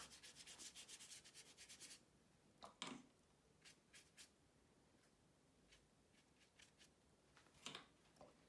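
Faint, quick brushing of a round watercolour brush dabbed and scrubbed on textured watercolour paper, about seven strokes a second, stopping about two seconds in. A few faint taps follow, then a soft knock near the end.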